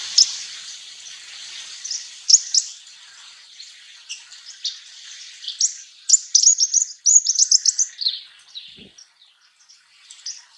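Russet sparrow chirping: a series of short, high chirps, coming in a quick run about six to eight seconds in.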